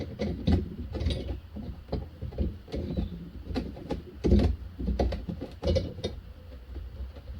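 A G-clamp being screwed down to push back the piston of a Daewoo Matiz brake caliper, with irregular metal clicks, knocks and creaks as the tool is turned and shifted.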